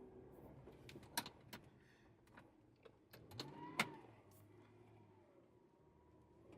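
Audi R8 driving slowly on a snowy road, heard faintly as a low steady hum, with a few sharp clicks and a short whine that rises and falls about halfway through.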